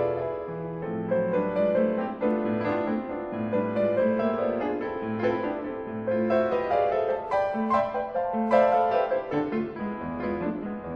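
Piano music: a piece of single notes and chords played over a low bass line.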